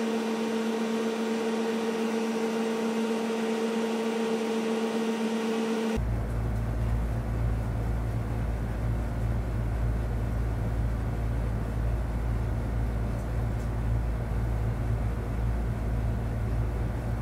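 Steady mechanical hum with a held tone that switches abruptly, about six seconds in, to a deeper, steady rumble that carries on.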